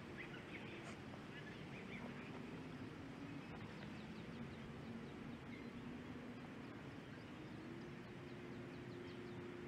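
Faint outdoor ambience: a few short bird chirps, mostly in the first couple of seconds, over a steady low hum that drifts slightly in pitch and steps up near the end.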